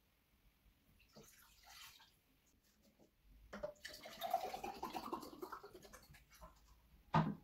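Water poured from a plastic bottle into a glass, the sound of the stream rising in pitch as the glass fills. A brief low thud just before the end.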